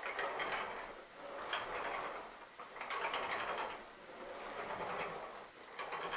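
Unplugged Hoover WindTunnel MAX upright vacuum pushed back and forth across the floor, its wheels and brush head rolling with a rushing, scraping noise that swells with each stroke, about one every second and a half.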